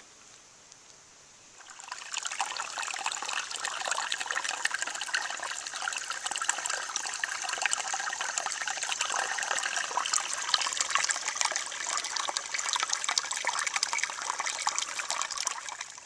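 Shallow creek water trickling over a flat rock, a steady dense patter of fine clicks that starts suddenly about two seconds in and stops abruptly just before the end.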